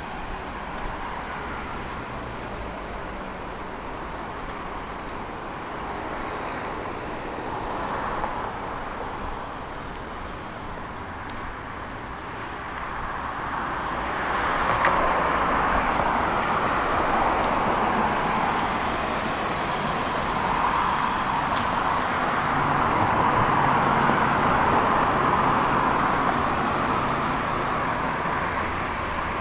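Tram running on its rails, an even rolling noise that grows louder about halfway through and stays up.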